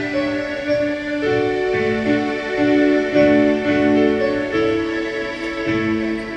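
Background music: a keyboard playing a slow melody of held notes.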